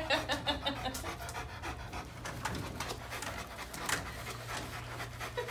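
A large Great Pyrenees–St Bernard mix dog panting quickly, with short, evenly repeating breaths.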